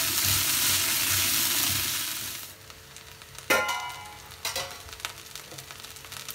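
Chopped cluster beans sizzling in oil in a non-stick kadai as they are stirred with a wooden spatula. The sizzle cuts off suddenly about two and a half seconds in, followed a second later by a sharp clink with a brief ring and a few light knocks.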